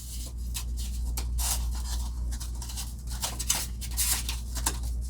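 Polystyrene ceiling tile being cut with a knife along a straight edge: a run of short, irregular scratchy strokes.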